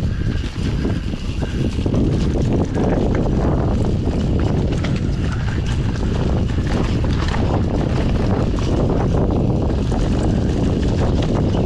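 Mountain bike riding along a dirt trail covered in dry leaves: the tyres rolling and crackling over leaves and dirt and the bike rattling, with steady wind noise on the microphone.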